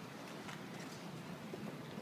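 Steady outdoor background noise, with a couple of faint light clicks about halfway through.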